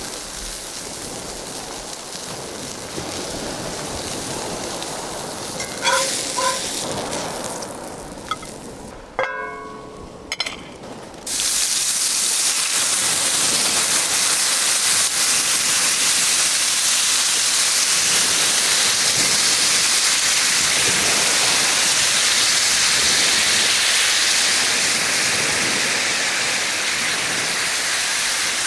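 Surf washing on a shingle beach with wind, and a few light clinks about six and nine seconds in. About eleven seconds in, a sudden loud, steady hiss and sizzle starts as liquid is poured into the smoking-hot cast-iron skillet and flashes to steam, deglazing the pan.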